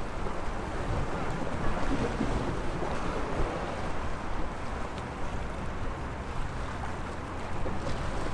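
Sea waves washing steadily against the shore, with a low wind rumble on the microphone.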